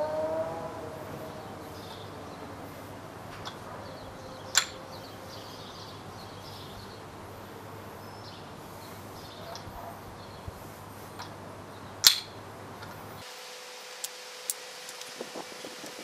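A wooden maple kendama clacks twice sharply as the ball lands against the ken, about four and a half and twelve seconds in, with a few lighter taps near the end. Steady outdoor background noise runs underneath, and a rising whine fades out in the first second.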